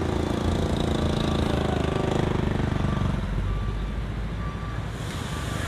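A motor scooter rides past close by, its engine note dropping and fading away after about three seconds. A low, steady engine rumble runs underneath.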